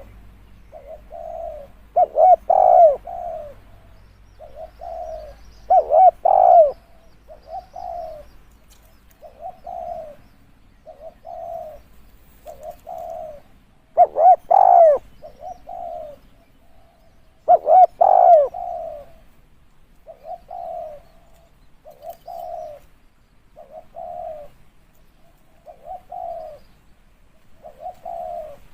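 Spotted dove cooing over and over: short low coos about once a second, with four louder, longer phrases among them.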